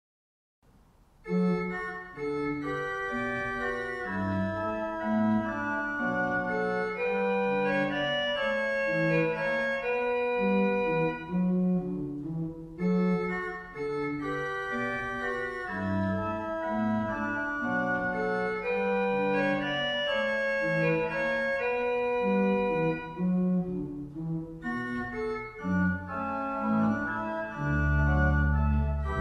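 Organ music: a slow instrumental piece of held chords that starts about a second in after a brief silence, with short breaks between phrases about twelve and twenty-four seconds in.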